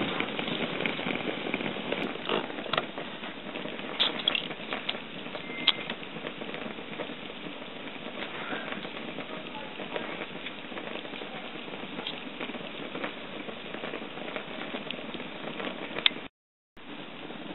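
Pot of water boiling over a wick stove's flame: a steady sizzling crackle with scattered light clicks of the lid rattling on the pot. The lid rattling is the sign that the water is still boiling in the oven pot.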